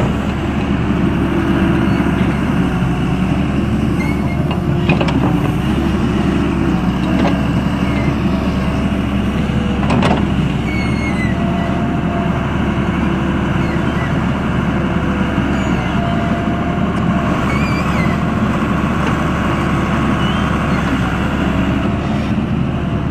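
Doosan 140W wheeled excavator's diesel engine running steadily under load while plowing snow, with a few sharp knocks in the middle.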